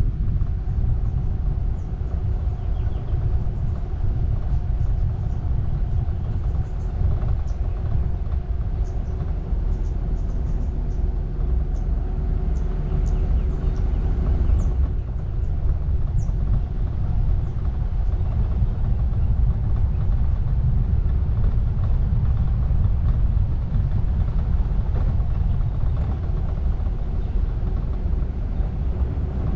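Car driving along a narrow paved lane, heard from a camera on its roof: a steady low rumble of road and wind noise with a faint steady hum. Faint short high ticks come and go through the middle stretch.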